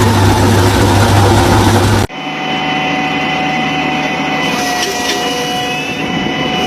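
Loud machine running with a strong low hum, cut off abruptly about two seconds in and replaced by a steadier machine whine carrying several high steady tones.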